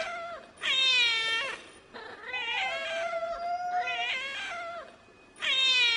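A cat meowing over and over: a string of drawn-out meows, each about a second long and bending in pitch, with short pauses between. The middle one, about two seconds in, is the longest.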